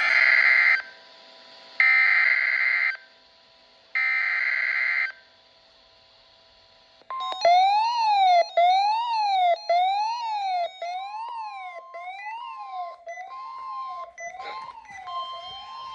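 Emergency Alert System alert: three short bursts of SAME header data tones, each about a second long. About seven seconds in, an attention tone starts that sweeps up and down like a siren about once a second, with a steady higher tone cutting in and out, and it slowly fades toward the end.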